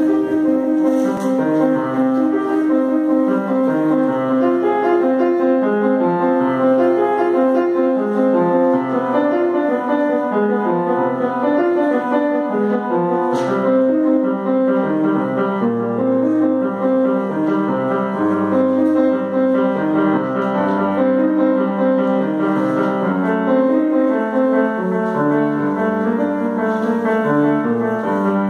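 A grand piano played solo: a continuous piece of many changing notes at an even loudness.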